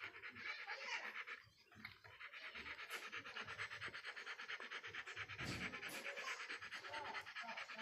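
Doberman panting fast and evenly with its mouth open and tongue out, pausing briefly about a second and a half in.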